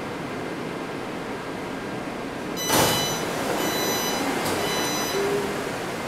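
Taipei Metro C381 subway car's sliding passenger doors opening at a station stop: steady cabin noise, then a sharp burst of noise about three seconds in as the doors release, followed by a few short high tones as they slide open.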